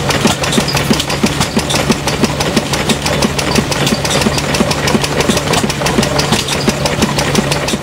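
Vintage stationary engine with twin flywheels running at a steady speed, a fast, even beat with sharp clicks from its exposed pushrod valve gear.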